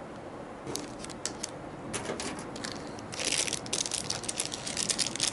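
Small plastic packaging handled by hand: a few light clicks, then from about three seconds in a dense, steady crinkling of plastic.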